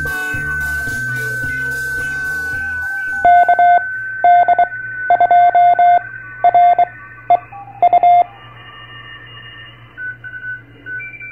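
Intro music with a steady beat, which gives way about three seconds in to a Morse code beep keyed in short and long marks for about five seconds, over a steady high tone.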